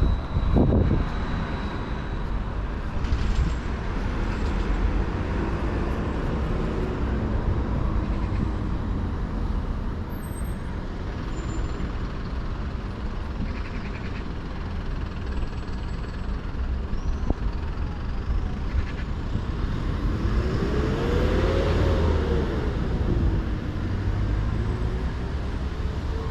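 Steady road traffic rumbling, with one vehicle's engine rising and then falling in pitch about twenty seconds in.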